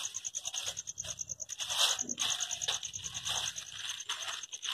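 Cat nosing and pulling at a plastic bag of food scraps: irregular crinkling and rustling of plastic, with a steady fast high pulsing in the background.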